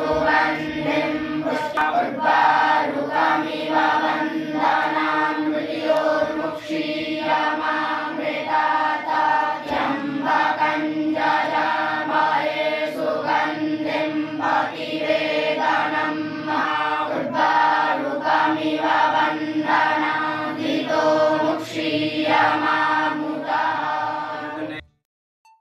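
A group of boys chanting mantras together in unison, many voices sounding at once. The chant cuts off abruptly near the end.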